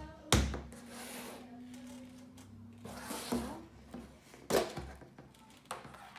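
Slime containers being handled on a table: four sharp knocks spread over a few seconds, with rubbing and scraping between them.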